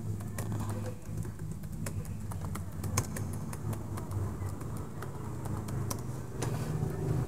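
Computer keyboard being typed on: a quick, irregular scatter of key clicks over a steady low hum.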